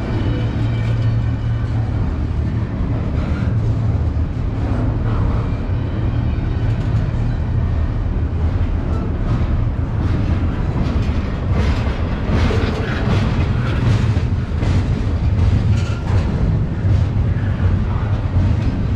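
Double-stack intermodal freight train rolling past at speed: a steady loud rumble of steel wheels on rail, with repeated sharp clicks and now and then a brief squeal.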